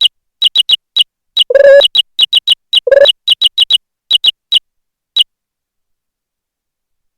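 Synthetic key-press sound effects from keyboard-sound software (Jingle Keyboard): short, high squeaky chirps fired at an irregular typing rhythm, with a couple of longer, lower tones mixed in, stopping a little after five seconds.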